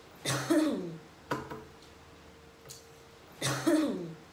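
A young woman coughing twice, about three seconds apart, each cough with a sharp start and a voiced tail that falls in pitch. A short click follows the first cough, and a faint steady hum runs underneath.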